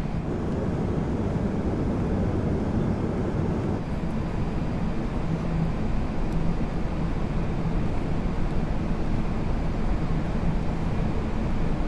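Steady rush of airflow and engine noise inside an Airbus A380 cockpit on final approach, with the landing gear down and flaps at full. A faint steady hum joins about five seconds in.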